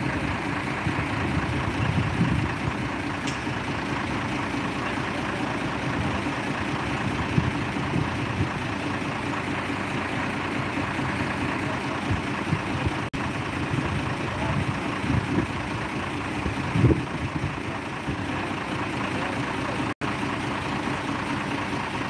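Heavy diesel truck engine running steadily, with a couple of brief louder low bumps about two seconds in and again late on.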